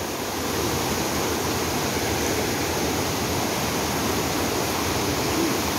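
Rain-swollen, fast-flowing muddy river rushing over rocks: a steady, loud roar of turbulent water from a flood that has overflowed its banks.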